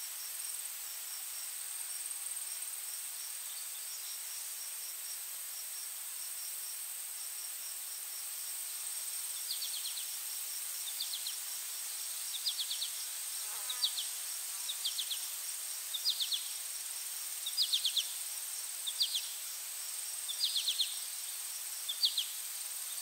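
Insects calling: a steady high-pitched whine, and from about ten seconds in, short chirps of a few quick pulses repeating roughly every second and a half.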